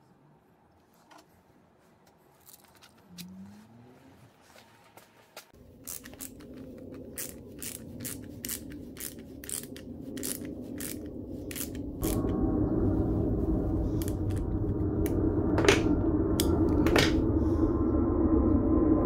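Repeated sharp metal clicks, about two a second, as wrenches tighten nuts on a threaded rod. Background music comes in about halfway through and grows louder.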